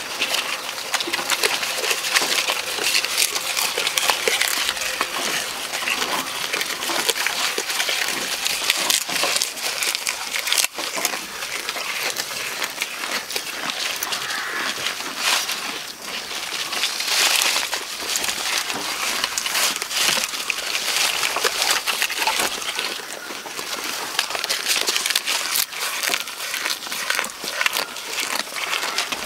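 Goats tearing and chewing jackfruit leaves close up: a continuous crackling rustle and crunch of leaves and stems.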